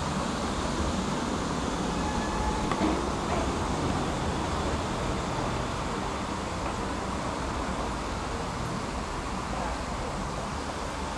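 Tram running on its rails, a steady rumble of wheels and running gear, with a brief clack about three seconds in.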